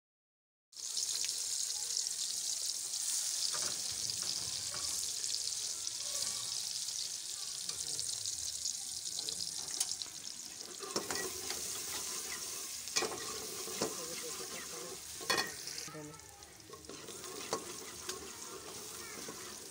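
Sliced onions sizzling in hot oil in an aluminium pot as they fry to brown, with a steel ladle stirring and clinking against the pot, the clinks mostly in the second half. The sizzle starts abruptly about a second in and dies down near the end.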